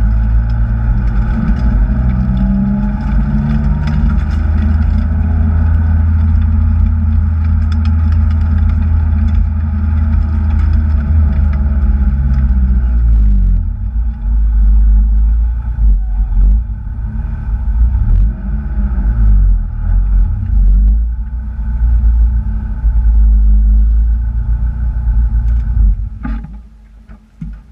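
Kraftwerks-supercharged Acura TSX engine running hard under load. For the first half it holds a fairly steady pitch, then the revs rise and fall repeatedly, and near the end the sound drops away sharply.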